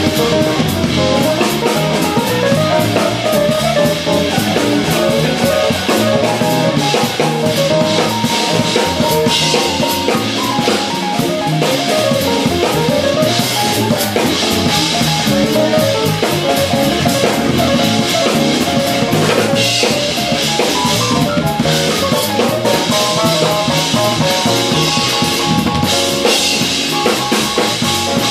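Jazz fusion band playing live: electric guitar and electric bass over a drum kit, in a busy continuous groove with a melodic line that moves about.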